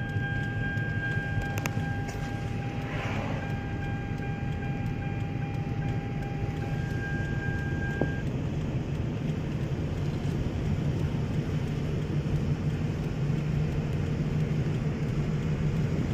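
Road and tyre noise heard inside a Toyota Camry coasting in neutral and gathering speed, a steady low rumble that grows slightly louder. A steady high electronic tone sounds over it and stops about halfway through.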